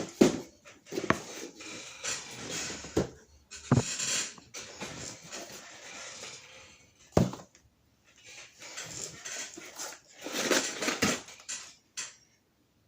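Irregular rustling and handling noise, with sharp clicks and knocks of objects being picked up and set down.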